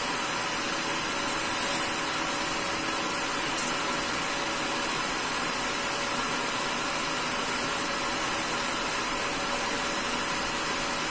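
Steady background hiss with a constant low hum, the sound of a motor or fan running. Two faint light ticks come from the cardboard webcam box as it is pried open.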